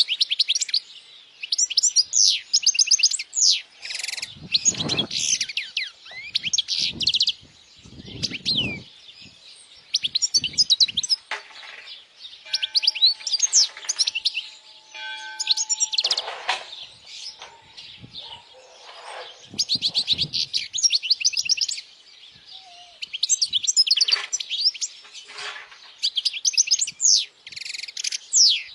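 European goldfinch singing: fast phrases of high twittering and sliding notes, broken by short pauses.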